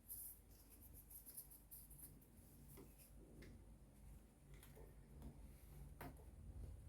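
Near silence with a few faint, scattered clicks and light handling noises over a low hum.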